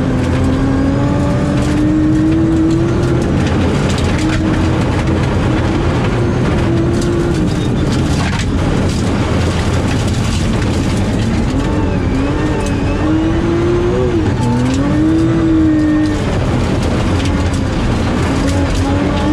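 BMW E36 rally car's engine heard from inside the cabin at full stage pace, revving up and dropping in pitch at each gear change, with a busier stretch of lifts and downshifts about two-thirds of the way through. Gravel road noise and stones knocking on the underside run beneath it.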